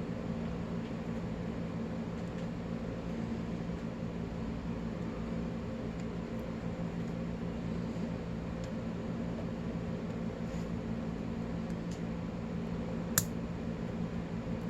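Steady background hum like a fan, with a few faint ticks and one sharp click about thirteen seconds in from the pick tools working a padlock.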